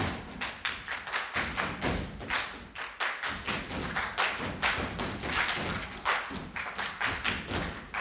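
Body percussion by a troupe of performers: hand claps, body slaps and foot stomps in a fast, steady rhythm of sharp strikes and thuds.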